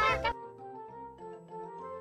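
Soft instrumental background music of held, flute-like notes. In the first moment a loud, wavering high call breaks off.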